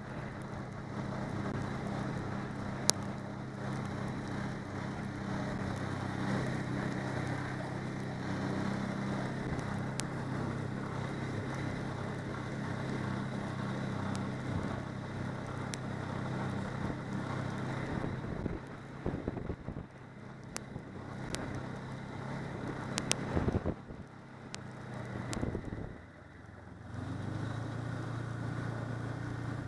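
Snowmobile engine running steadily at cruising speed, with wind noise on the microphone. About 18 seconds in the engine note falls away and the sound becomes uneven, with knocks and bumps for several seconds. Near the end it settles back into a steady, lower hum.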